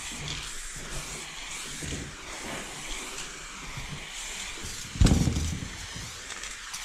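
Aerosol spray paint cans hissing steadily as paint is sprayed onto a train's side, with a sudden loud thump about five seconds in.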